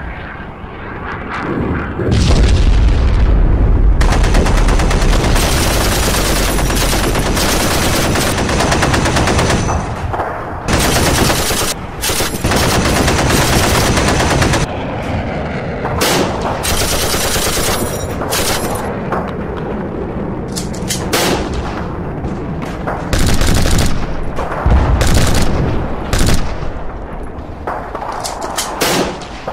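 Dubbed battle sound effects: continuous machine-gun and rifle fire, with deep blasts about two seconds in and again near the end.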